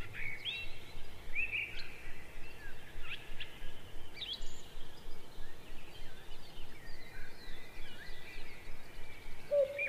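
Wild birds chirping and calling: many short rising and falling calls overlapping, with a lower hooting call starting near the end.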